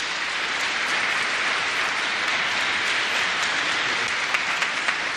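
Audience applauding, a dense, even clapping, with single sharp claps standing out near the end.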